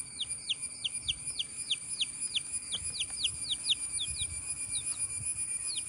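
Chicken chick peeping over and over, short falling peeps about three or four a second, with a steady high-pitched tone behind.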